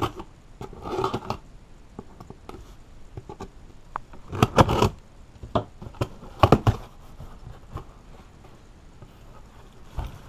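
A mail package being handled and pulled open by hand: packaging crinkling and tearing in a few short bursts, the loudest about four and a half seconds in and again about six and a half seconds in, with small clicks and rustles between.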